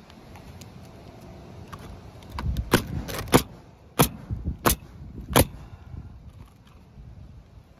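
Utility knife cutting through an asphalt shingle against a metal roof valley: a run of scraping with about six sharp snaps, starting about two and a half seconds in and lasting about three seconds.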